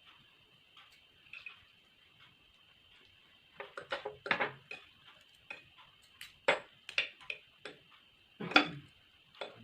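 Close-miked eating sounds: utensils clicking and tapping against a dish of spicy instant noodles, sparse at first and then busier, with a few louder, fuller mouth noises of eating about halfway through and near the end.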